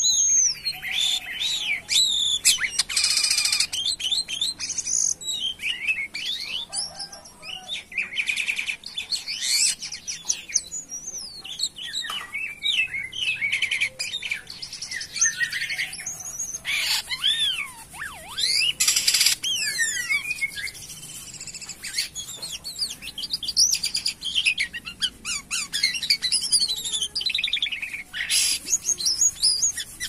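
Jalak kapas (white-shouldered starling) singing vigorously without pause: a varied stream of rising and falling whistles broken by harsh, rasping notes.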